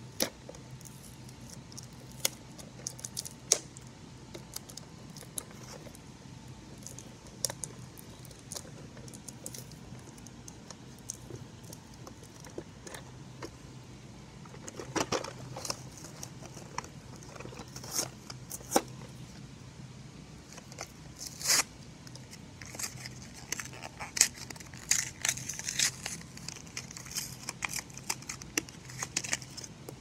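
Hands handling a cardboard toy box and its plastic packaging: scattered clicks and taps of cardboard, then rustling and crinkling of a clear plastic bag, busiest in the second half. A faint steady low hum runs underneath.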